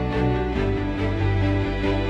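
Instrumental background music with sustained notes, the low notes changing about half a second in.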